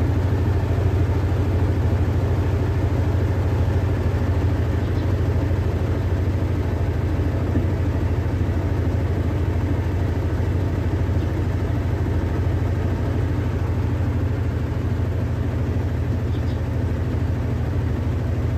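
Electrolux Ecologic LEC12 washing machine in its intermediate spin: the motor and drum hum loudly and steadily, with a busy rattling haze above the hum.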